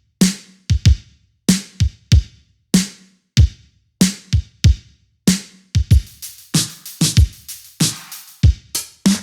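Electronic drum-machine beat: sharp kick and snare hits with clean gaps of silence between them, growing busier with denser, hissier high hits from about six seconds in.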